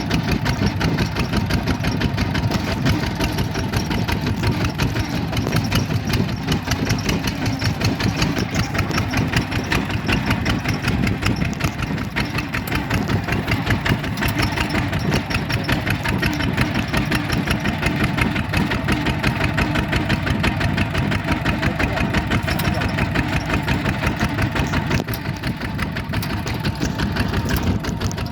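Bulldozer's diesel engine running steadily, with an even, rapid chugging beat that holds without a break.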